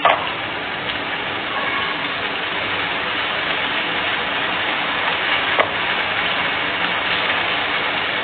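Steady hiss of hot oil sizzling as food deep-fries in a pan.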